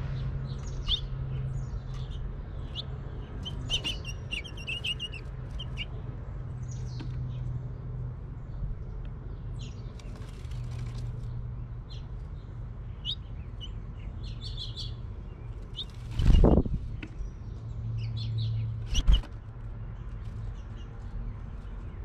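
House finches giving short, scattered chirping calls, with two brief loud rushes of wingbeats about two and a half seconds apart late on, over a low steady hum.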